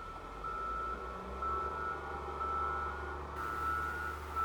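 Vehicle reversing alarm beeping steadily, about one half-second beep every second, over a low engine rumble.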